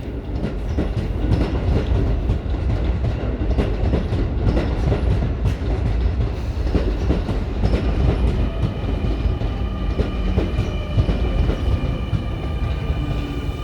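Keio 8000-series electric train pulling out of a station: a low rumble with frequent clacks of wheels over rail joints. About two-thirds of the way through, a steady high electric whine from the traction motor drive joins in.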